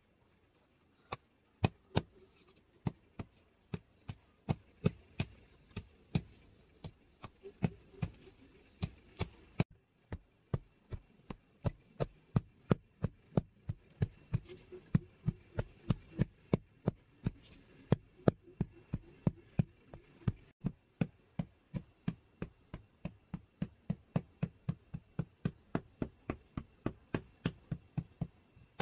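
A short wooden log pounded repeatedly onto loose soil in a seed bed, tamping it firm: a steady run of dull thumps, about two a second, with a brief pause near ten seconds.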